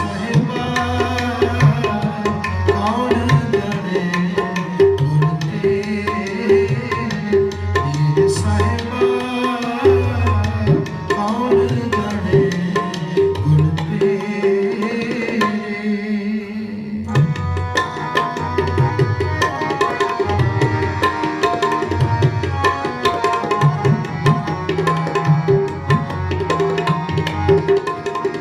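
Tabla playing an instrumental interlude between sung verses of a Sikh shabad, the bass drum's strokes sliding up and down in pitch under a sustained melodic accompaniment.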